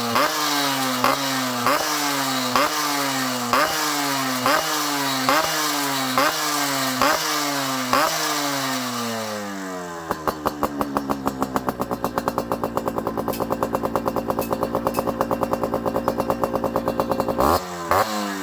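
Yamaha RX-Z's single-cylinder two-stroke engine breathing through an aftermarket expansion-chamber exhaust, revved in quick throttle blips about once a second. It then drops to a steady, popping idle, with one more blip near the end.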